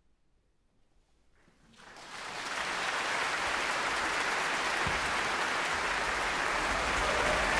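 Near silence, then a concert-hall audience bursts into applause about a second and a half in, building within a second to steady, loud clapping.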